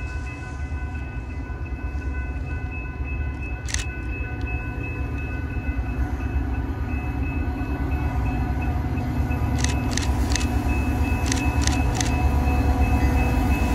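Approaching Metra commuter train's diesel locomotive, its low rumble growing steadily louder, with steady high ringing tones over it and a few sharp clicks about ten seconds in.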